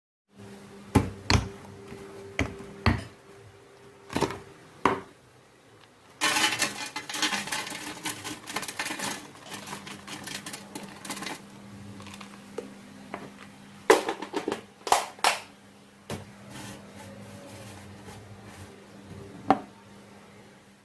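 Kitchen preparation sounds: scattered clicks and knocks of utensils and bowls, a dense stretch of rattling or scraping about six to eleven seconds in, over a steady low hum.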